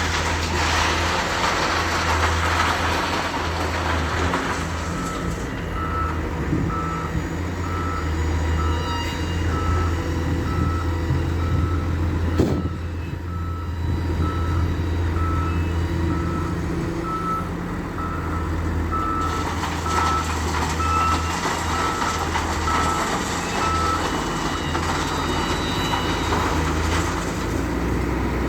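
Heavy diesel earthmoving machinery running with a steady low drone while a reversing alarm beeps about twice a second, starting about five seconds in and stopping a few seconds before the end. A single sharp knock comes near the middle.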